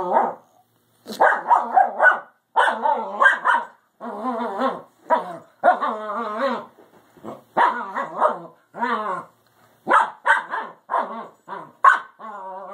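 Puppies play-fighting, giving a run of short growly barks and yips in quick bursts, often two or three at a time, with brief pauses between.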